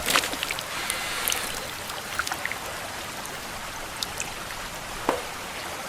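Water running steadily in a small stream, with a few faint ticks.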